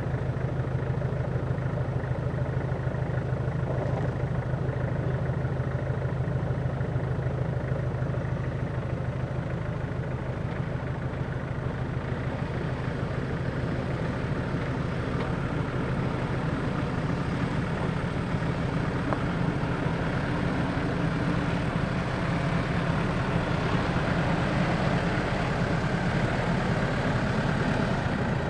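Land Rover Defender's engine running steadily at low revs as the truck crawls slowly over rough, rutted ground, a little louder in the second half.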